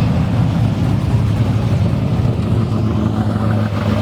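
A car engine running at a steady, loud low rumble, holding an even pitch.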